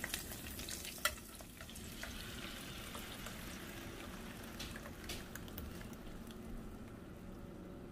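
Oil sizzling softly in a nonstick frying pan around a sprig of epazote, with a light click about a second in; blended green salsa is then poured from a blender jar into the hot pan.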